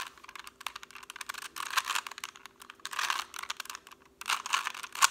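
Rubik's cube being twisted by hand: quick plastic clicks and clacks of the layers turning, in irregular bursts.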